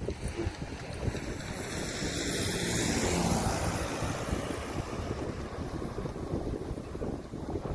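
A motor vehicle passes by, its engine and tyre noise swelling to a peak about three seconds in and then fading, over wind buffeting the microphone.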